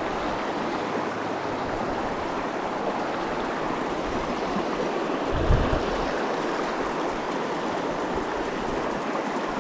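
Shallow river riffles rushing steadily over rocks, close by. A brief low thump about halfway through.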